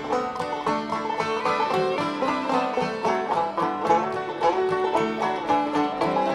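Background music: an upbeat old-time string-band tune led by a quickly picked banjo, with no singing.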